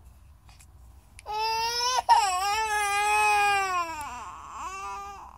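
A two-year-old toddler crying: one long, loud wail starts about a second in and breaks briefly once. Near the end it drops in pitch and tails off into a shorter sob.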